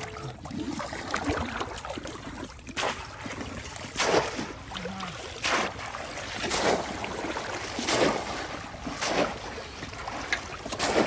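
Repeated splashes of shallow pond water, about one every second or so, over a steady watery background.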